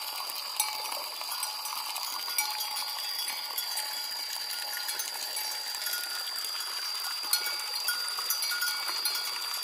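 Bells on grazing cattle clanking now and then, over a steady high-pitched tone.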